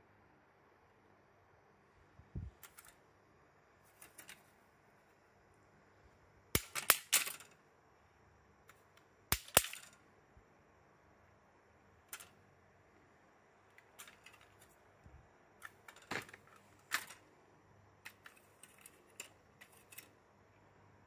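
Steel tape measure blade clicking and clattering in short clusters as a cat paws at it. The loudest clacks come about seven and about nine and a half seconds in, with another group around sixteen to seventeen seconds.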